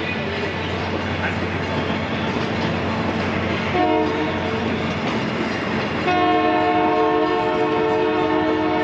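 A train's multi-chime air horn sounds a short blast about four seconds in, then a long blast from about six seconds in. Between the blasts, the train's cars roll past with wheels clacking over the rails.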